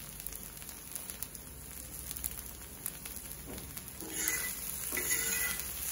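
Oil sizzling and crackling softly on an iron tawa under pan-frying idli pieces as fresh curry leaves are scattered over them, growing a little louder about four seconds in.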